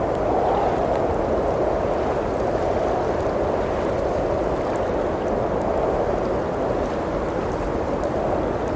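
Steady rushing wind of a blizzard, swelling and easing slightly, with faint, scattered crackles of a wood fire in a fireplace.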